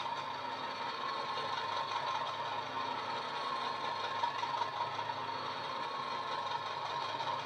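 Sampled Class 50 diesel engine (English Electric 16-cylinder) idling steadily, played by a LokSound 5 DCC sound decoder through a model locomotive's small speaker during its long cold start sequence.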